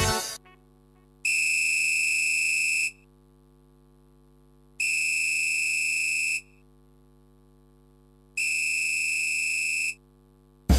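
Three long, steady electronic buzzer tones, each about a second and a half, evenly spaced a few seconds apart, over a faint low hum.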